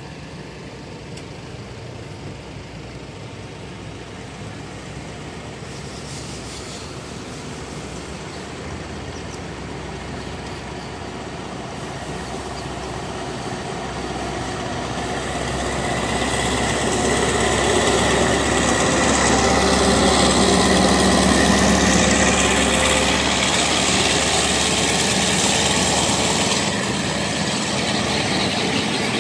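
Diesel locomotive hauling a passenger train, its engine growing steadily louder as it approaches and passes about twenty seconds in, followed by the rumble of the coaches rolling past.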